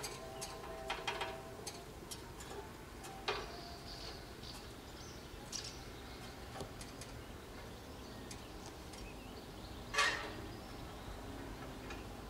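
Scattered sharp knocks and clicks from a rainwater downpipe being fitted by hand, the loudest about ten seconds in, with birds chirping.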